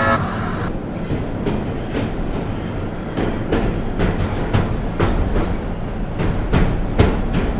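Train running on track, its wheels clattering over rail joints in irregular clicks about twice a second above a steady rumble. A horn cuts off right at the start.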